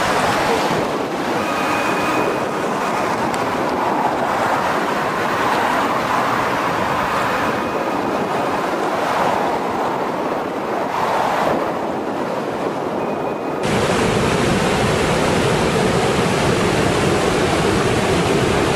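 Fast, muddy floodwater rushing through a swollen desert wash at about 7 to 8 feet per second, a dense steady rush of water with wind on the microphone. About 14 seconds in the sound changes abruptly to a steadier, deeper rush.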